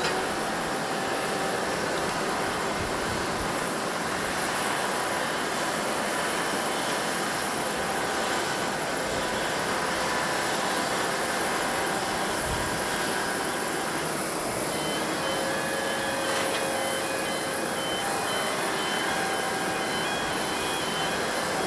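Boeing 787-10 airliner's jet engines, a steady, unbroken noise with several steady whining tones over it. From about fifteen seconds in, a broken high tone repeats.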